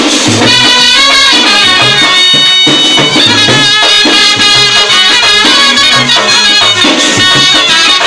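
Brass band playing a tune: trumpets and a euphonium carry the melody over a bass drum, snare drum and hand cymbals keeping a steady beat.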